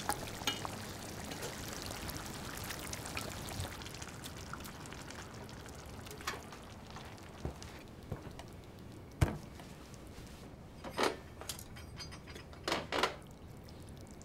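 Tomato beef stew bubbling and hissing in the pot, fading out after about six seconds. Then a pot is set down with one sharp knock, followed by a few short clinks of tableware near the end.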